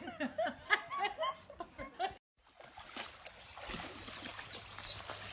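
Quiet voices and laughter that cut off abruptly about two seconds in, followed by a steady hiss with a few faint high chirps.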